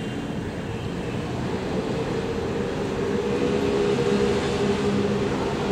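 A motor vehicle's engine running with a steady low hum and rumble, growing louder from about two seconds in.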